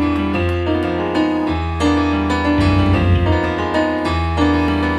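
Electric keyboard playing slow, sustained chords over a held bass note, changing about once a second, with no drums.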